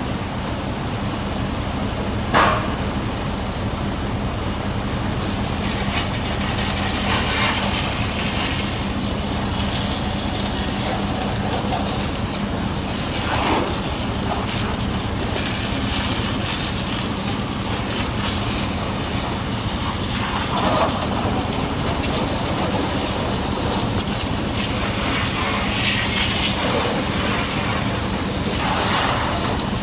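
Car wash tunnel machinery running steadily: a constant motor hum under a rushing, hissing noise, with a few short knocks along the way.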